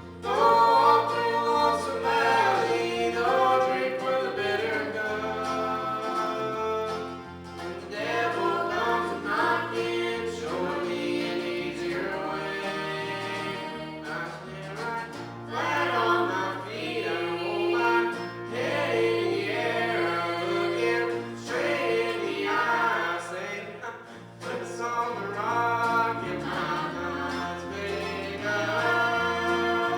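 Gospel music: a choir singing over instrumental backing with a moving bass line.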